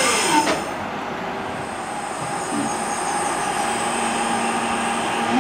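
A Class 323 electric multiple unit's falling motor whine breaks off about half a second in; then a steady electrical hum with a thin high whine from a Class 323 standing at the platform, a low steady tone joining about halfway through.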